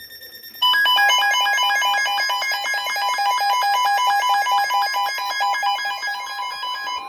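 Electronic emergency alert tones that announce a new warning. Faint steady tones come first. About half a second in, a loud steady tone starts, with a rapid run of repeating beeps at several pitches over it, about seven a second.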